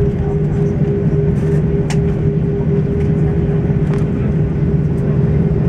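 Cabin noise of an Airbus A340-600 moving on the ground: a steady engine hum with a constant mid-pitched tone over a low rumble, and a faint click about two seconds in.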